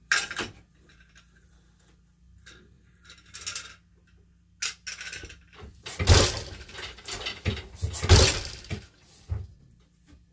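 Wooden floor loom being worked: a boat shuttle clattering as it is passed and caught, light wooden knocks of the loom's moving parts, then the beater thudding against the cloth twice, about two seconds apart, which are the loudest sounds.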